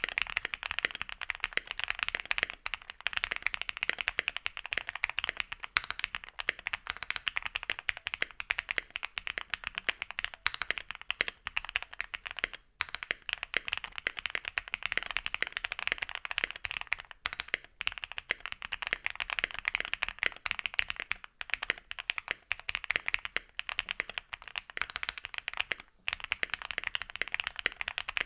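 Continuous fast typing on a Keychron Q1 gasket-mount mechanical keyboard with stock Gateron Phantom Red linear switches and an aluminium plate: a dense run of key clacks with a few brief pauses.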